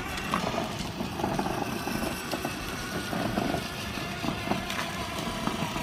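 Battery-powered ride-on toy car driving along asphalt: its small electric motor running steadily and its hard plastic wheels rolling over the pavement.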